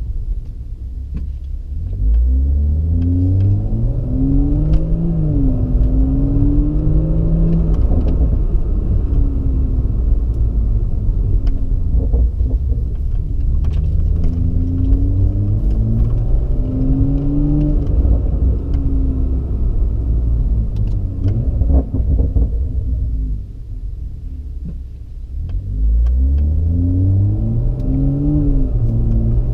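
Toyota GR Supra (A90) engine through an HKS cat-back exhaust, accelerating in three pulls with the pitch climbing and dropping back at each upshift, and easing off to a quieter lull in between, heard from inside the car.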